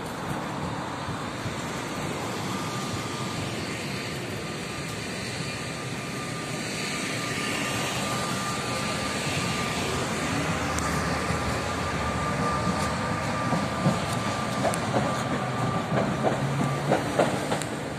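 Tatra KT3UA tram running along the platform, with a steady high whine through most of it over the rumble of the car. Near the end come a series of sharp clacks as the wheels cross rail joints.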